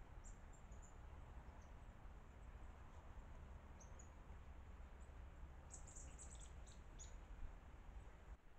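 Faint, short, high-pitched chirps from an unseen small animal over a steady low hiss. A few come singly in the first seconds, then a quick cluster about six to seven seconds in.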